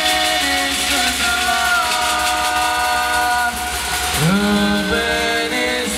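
Pastellessa music: a chorus of bottari holding long sung notes together over a fast clatter of iron scythes and beaten wooden barrels and vats. The clatter drops away about three and a half seconds in, and the voices then glide upward into a new held chord.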